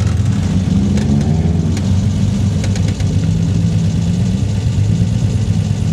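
Off-road 4x4's engine running steadily at low revs, its pitch shifting slightly, with a few light clicks.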